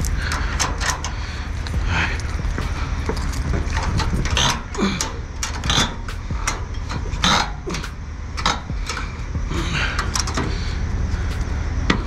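Scattered metallic clanks and clicks as pins and steel deck parts of a car-hauler trailer are handled, over a steady low rumble.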